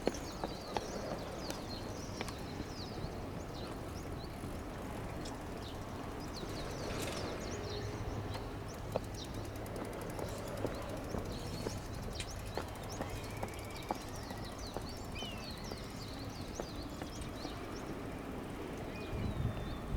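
Outdoor ambience: small birds chirping here and there over a steady low background rumble.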